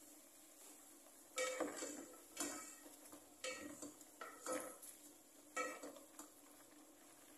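A spatula scraping and knocking against the inside of a metal cooking pot while stirring chicken cooking in yogurt, in about five strokes roughly a second apart starting a second and a half in.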